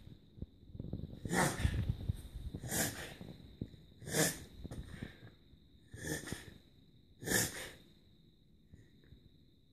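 A whippet reverse sneezing: five loud, snorting inhalations drawn sharply in through the nose, about one every one and a half seconds, easing off near the end. The owner later put the bouts down to an allergy.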